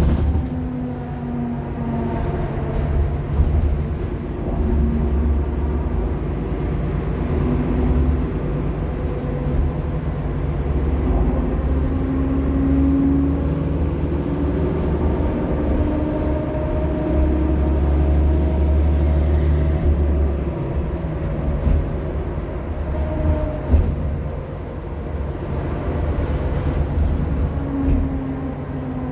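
2015 Nova LFSA HEV articulated hybrid bus under way, its Cummins ISL9 diesel and Allison H50 EP hybrid drive running with a low rumble and engine tones that rise and fall as it pulls and slows. A faint high-pitched whine climbs and falls away about two-thirds through.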